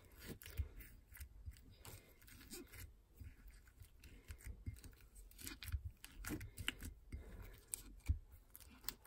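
Foam-bead slime being kneaded and pressed by fingers in a glass bowl: faint, irregular sticky clicks and crackles.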